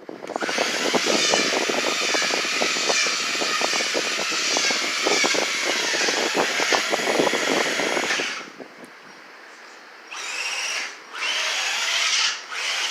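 RC truck's motor whining hard with a dense clatter of wheels and drivetrain on a hard floor for about eight seconds. It then drops to a low hum and comes back in three short bursts of throttle.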